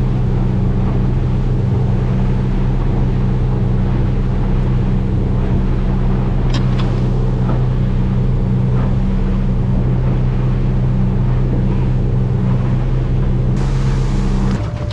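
Boat engine running at a steady cruising speed while under way, with wind and water noise; the engine note drops away near the end.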